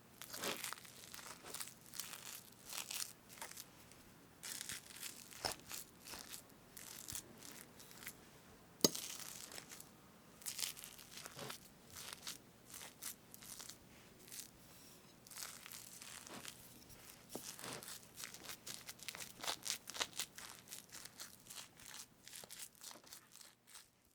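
Whipped cream on a strawberry cake being cut and parted by a utensil close to the microphone: many short, irregular soft strokes, with one sharp click about nine seconds in.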